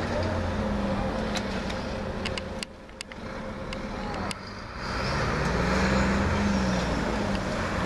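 Road traffic going by: vehicle engines and tyres, dipping briefly about three seconds in, then a passing vehicle grows louder from about five seconds in.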